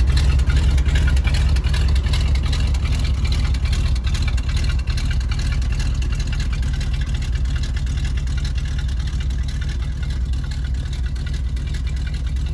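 1979 Chevrolet C70 grain truck's 366 gasoline V8 running steadily with a low, even drone.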